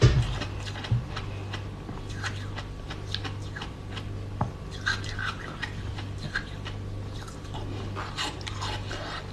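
Coloured ice being bitten and crunched close to the microphone: irregular crisp crunches over a steady low hum, with a loud thump at the very start.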